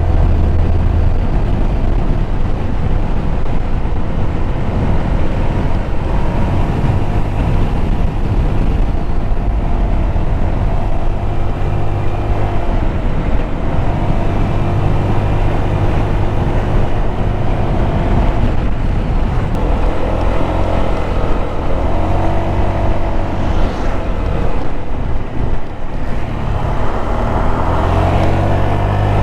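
Motorcycle engine running on the move, its pitch rising and falling with the throttle, over a rush of wind noise.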